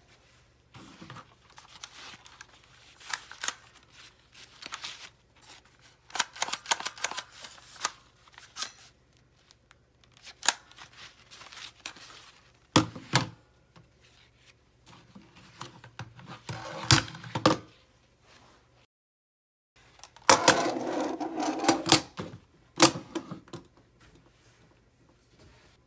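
Plastic airsoft pistols being handled: scattered clicks, knocks and scrapes of plastic parts against each other and the desk, heaviest in a few bunches, with the sound cutting out briefly about two-thirds of the way through.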